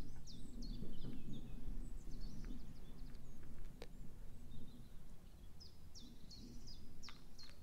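Quiet handling of plastic beads and fishing line, with a few small sharp clicks, while birds chirp in short falling notes in the background.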